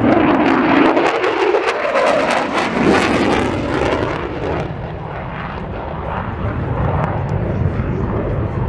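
Loud jet noise from the F-35A Lightning II's single F135 afterburning turbofan during a flying display. In the first few seconds the pitch sweeps audibly; from about halfway it eases into a steadier, lower rumble.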